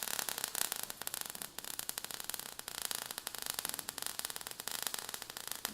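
Crackling, static-like noise: a steady hiss full of rapid, irregular clicks.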